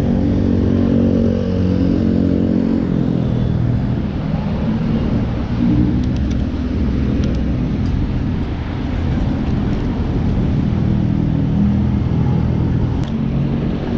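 Passing road traffic: cars and motorcycles running close by over a steady low rumble, with engine pitch falling as a vehicle passes in the first few seconds and more engines passing near the end.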